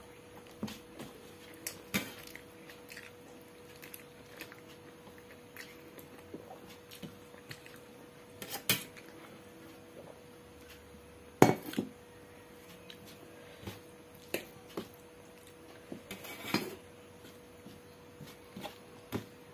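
Stainless steel plate and bowls clinking and knocking as food is eaten by hand and a steel bowl of curry is tipped out onto the plate: scattered clinks, the loudest a little past halfway, over a faint steady hum.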